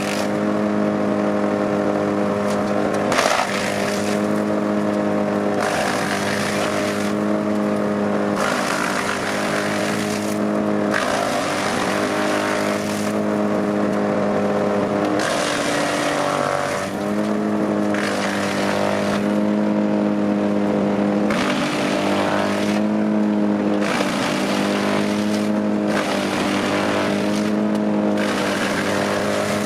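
Wood chipper's engine running steadily under load, with a surge of rushing, crunching chipping noise about every second and a half as wood is fed through.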